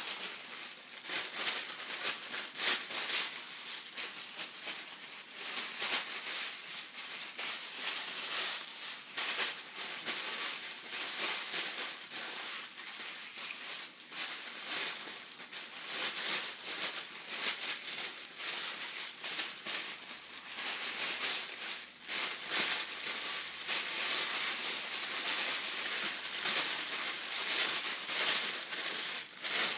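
Gift tissue paper being handled, rustling and crinkling continuously with many small irregular crackles and surges.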